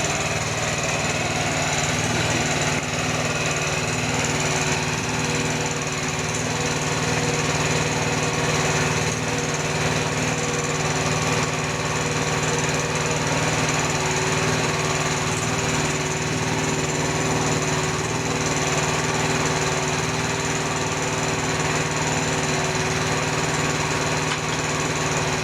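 Small engine running steadily at a constant speed, with no revving or load changes.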